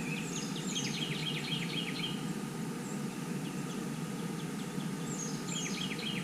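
Birds chirping outdoors in quick runs of short falling notes, one bout in the first two seconds and another near the end, over a steady low background rumble.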